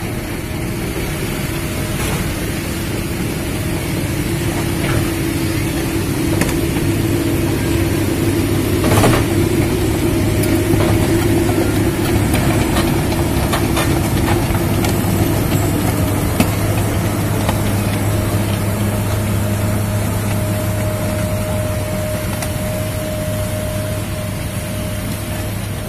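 Heavy diesel engines running steadily: a Komatsu hydraulic excavator working under load as its bucket pushes a loaded truck through mud, with one short knock about nine seconds in.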